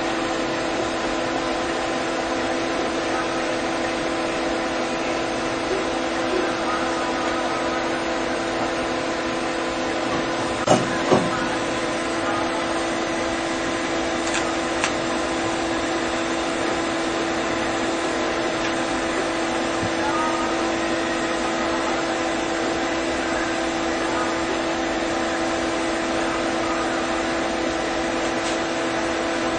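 A steady mechanical or electrical hum with hiss, holding a few fixed tones, and two sharp clicks about eleven seconds in.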